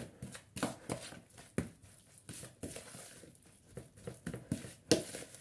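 Irregular knocks and clinks of a utensil against a mixing bowl as muffin batter ingredients are stirred together, about one or two strikes a second.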